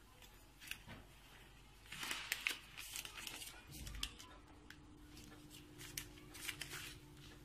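Scattered soft rustles and taps of pastry dough being cut and folded by hand on a work surface. A low steady hum comes in about halfway.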